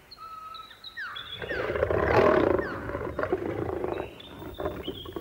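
A lion growling and snarling, loudest about two seconds in and lasting around two seconds. Short high whistling tones are heard before and after it.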